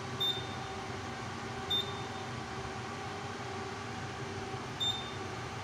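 Simplex 4010 fire alarm control panel giving three short, high beeps as its Trouble acknowledge key is pressed, one per press, while trouble messages are stepped through. A steady hum runs underneath.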